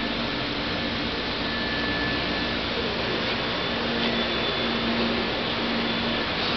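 Steady whooshing machine noise with a faint hum and a few thin faint tones, like a cooling fan or ventilation running; no weld is heard.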